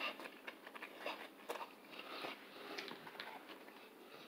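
A person chewing a mouthful of chili cheese fries close to the microphone: soft, wet mouth clicks and smacks scattered irregularly through the chewing.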